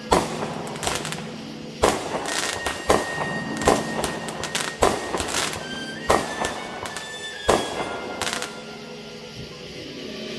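Aerial fireworks bursting overhead: about ten sharp bangs, roughly one a second, which stop about two seconds before the end.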